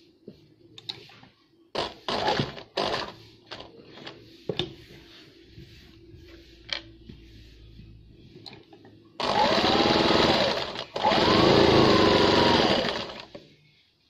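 Light clicks and rustles of fabric being handled, then an electric sewing machine runs in two stitching bursts about nine seconds in, with a brief pause between. The motor speeds up and slows down within each burst.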